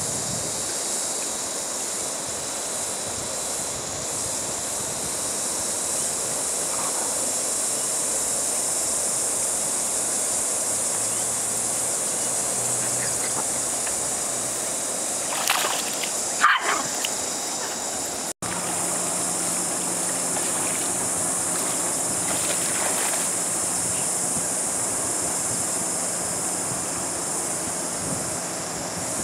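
A dog swimming in floodwater with light splashing, over steady wind and water noise and a constant high hiss. A few short louder splashes come just past the middle, and the sound drops out for an instant a little after them.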